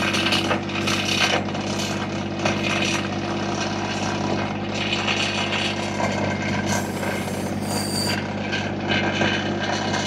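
Massey Ferguson subcompact tractor backhoe digging: the diesel engine runs steadily while the bucket scrapes and grinds through soil, with a few sharp knocks.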